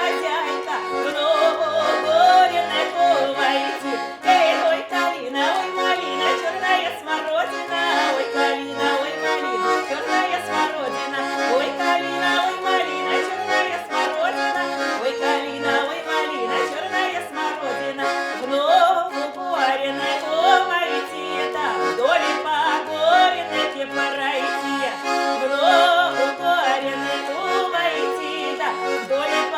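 Accordion playing a Russian folk-style song tune: a melody over short, regularly repeating bass notes and chords.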